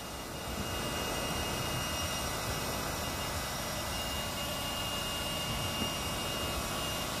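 Electric air pump running steadily, a continuous whirring rush with a faint high whine, as it inflates a chamber of an inflatable raft.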